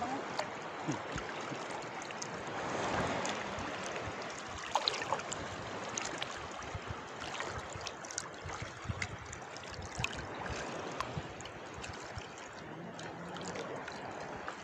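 Seawater sloshing and splashing around a person wading hip-deep, with small irregular splashes throughout.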